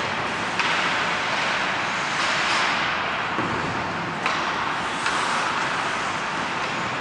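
Ice hockey play on a rink: skate blades scraping and carving the ice in several sharp, hissing surges over a steady din from the arena.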